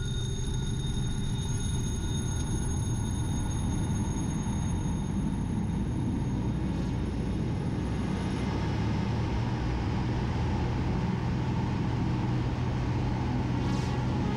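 Cockpit noise of a Zlin 526 aerobatic plane in flight: the piston engine and propeller drone steadily, and the engine note changes about eight seconds in.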